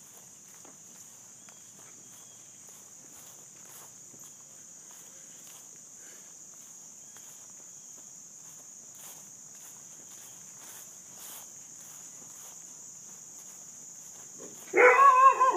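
Insects trilling in a steady high chorus, with faint footsteps on grass and dirt. Near the end a dog breaks in with a burst of loud barking.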